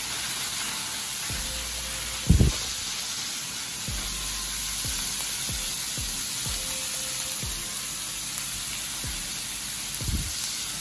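Diced smoked turkey and onions sizzling in oil in a frying pan, a steady hiss. A sharp knock comes about two seconds in, and a couple of lighter knocks near the end.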